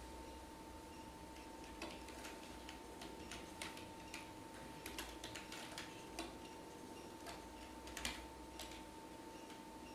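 Computer keyboard keys clicking in slow, irregular keystrokes as code is typed, over a faint steady whine.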